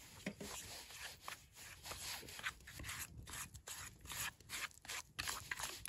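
A spoon stirring and scraping a thick oil-and-spice paste around a metal camping pot, in irregular scraping strokes.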